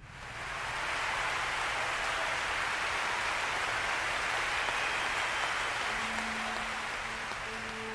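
Steady applause from a theatre audience, swelling in and holding as a dense wash of clapping, easing a little toward the end.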